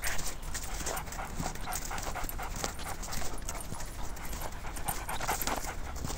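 A pug panting in short, noisy breaths, several a second.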